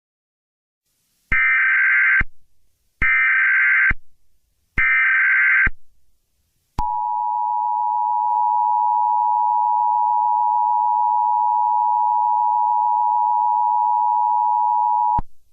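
Emergency Alert System tones: three roughly one-second bursts of SAME header data with short gaps, then the steady two-tone EAS attention signal held for about eight seconds before it cuts off suddenly. Together they mark the start of an emergency alert broadcast.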